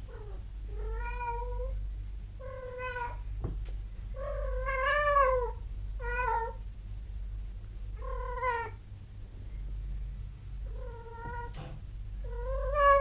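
Female cat in heat calling: about seven drawn-out yowling meows, most under a second long, with a longer, louder one about four seconds in. The calling is a sign of estrus.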